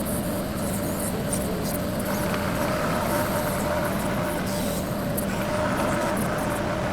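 TYM 2515H compact tractor's diesel engine running steadily at working speed while its backhoe digs, with a few light clicks over it.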